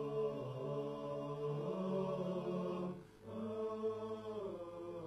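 A cappella vocal music: voices holding long, layered notes that change pitch every second or so, with a brief dip about three seconds in.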